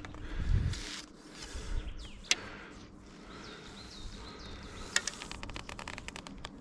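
Birds chirping in the background while an archer handles gear: a low thump about half a second in, a sharp click a little after two seconds, and a quick run of faint clicks near the end.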